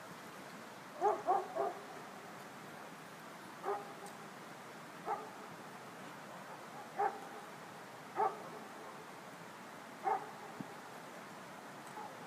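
An animal barking: a quick run of three short barks about a second in, then single barks every second or two.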